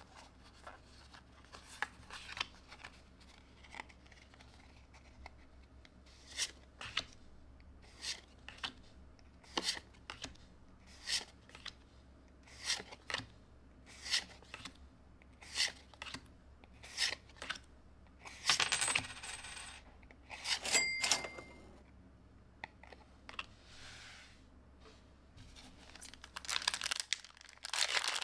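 Pokémon trading cards flipped through one at a time: a pair of soft card clicks about every second and a half as each card is slid from the front of the stack to the back. There are two louder rustling bursts with a brief high ring midway. Near the end comes the crinkle of a foil booster pack being torn open.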